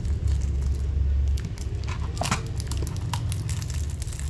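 Handling noise: crinkling and rustling with a few light clicks as the boxed lighter and its packaging are handled, over a steady low rumble.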